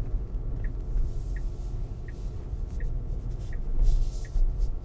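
Cabin noise of a Tesla Model Y rolling slowly: a steady low road rumble with a soft tick repeating about every three-quarters of a second from the turn signal. A brief hissy swell comes about four seconds in.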